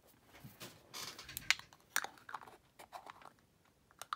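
Light handling noises: rubbing and rustling with several sharp clicks and taps, the loudest about a second and a half and two seconds in, as fingers are wiped and small glass jars of gilding wax are picked up and set aside.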